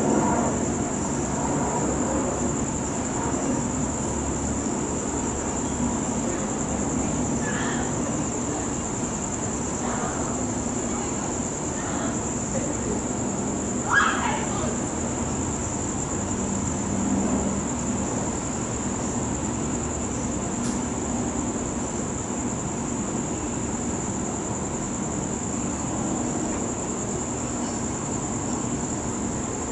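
Crickets chirring in one steady, unbroken high trill over a low background hum, with a brief sharper sound about halfway through.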